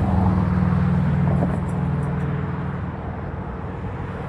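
Road traffic passing: cars driving across the railroad crossing, their engines giving a low steady hum that is loudest about a second in and fades after about three seconds.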